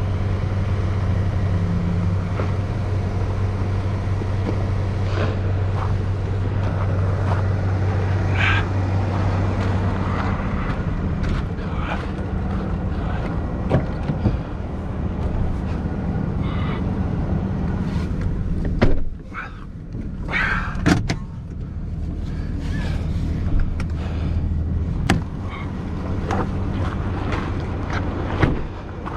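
Vehicle engine idling steadily, with scattered knocks, clicks and clatter from recovery gear being packed away around the vehicles.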